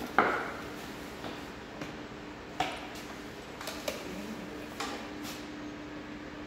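Handling knocks and clicks as a portable X-ray generator is lifted and positioned and an imaging plate is set under a horse's hoof: one sharp knock just after the start, then several lighter clicks and knocks, over a steady low hum.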